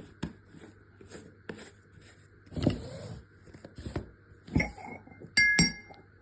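Kitchen utensils clinking as spices are spooned into a marinade bowl: scattered light taps and a few duller knocks, then two sharp, ringing clinks near the end, like a spoon striking the rim of a container.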